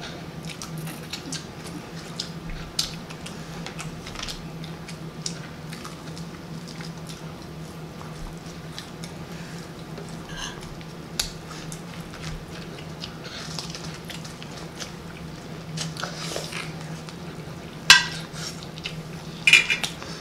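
Metal fork clinking and scraping on a ceramic plate while food is scooped, with small scattered clicks and two louder clinks near the end, over a steady low hum.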